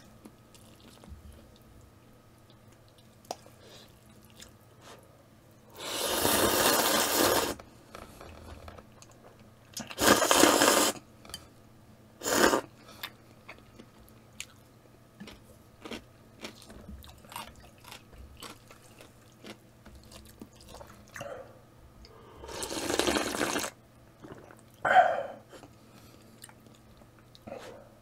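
Ramen noodles being slurped from the bowl in several separate slurps, the longest about a second and a half, with chewing and small chopstick clicks between them.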